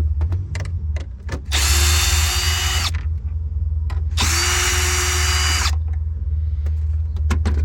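Power drill-driver run twice, each time for about a second and a half, with a steady whine as it backs out 8 mm screws from the cargo-area trim, with small clicks of the tool and screws between runs.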